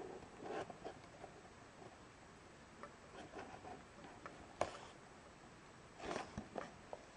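Small cardboard toy box being handled and turned in the hands: faint rustling and scraping of the card with scattered light clicks, one sharper click a little after halfway, and a short burst of rustling near the end.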